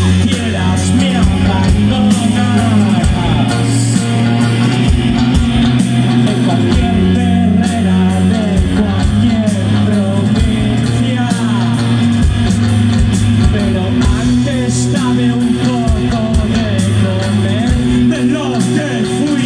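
Live rock band playing: a male lead vocal singing over electric guitar, electric bass and drums keeping a steady beat.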